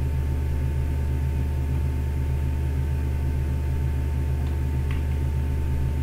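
Steady low hum with a faint steady tone above it, unchanging throughout: background noise of the recording.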